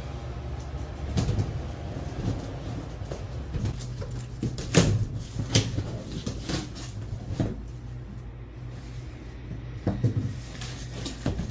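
Cardboard box and packing of a computer case being handled and opened: scattered knocks, scrapes and rustles, the loudest knock about five seconds in, over a steady low hum.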